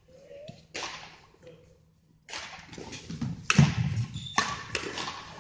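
Badminton rally: rackets striking the shuttlecock with sharp cracks that ring briefly in the hall, with players' footwork on the court floor. One strike comes under a second in, then a quicker run of strikes and steps from a little past two seconds, the sharpest about three and a half seconds in.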